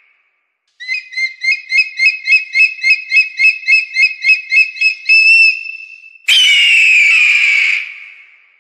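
Bird of prey calls: a fast run of high piping notes, about four a second, ending in a held note, then about six seconds in a long, harsh, descending scream that fades away.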